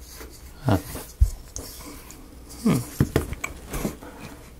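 A strong low thump and a few sharp clicks and taps from small laser-cut wooden model pieces being handled and fitted on a table. Two short, low voice-like sounds fall in pitch among them.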